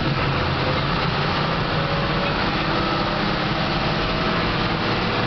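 Bus engine running and road noise from inside the cabin while the bus drives along, a steady hum and rumble with no changes.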